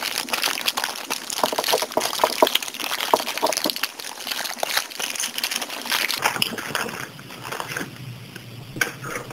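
Clear plastic packaging bag crinkling and rustling as it is pulled open by hand, with dense crackling that quietens about six seconds in to lighter scattered rustles.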